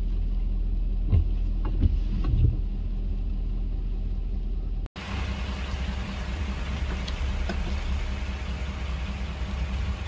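Steady low rumble of a vehicle engine idling, heard from inside the car, with a few dull thumps in the first couple of seconds. About five seconds in it cuts to a steady outdoor hiss over a lighter rumble.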